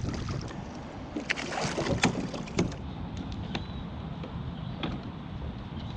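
Pedal-and-sail kayak under way: a steady rumble of wind on the microphone and water along the hull, with a few sharp knocks and clicks, most of them between one and three seconds in.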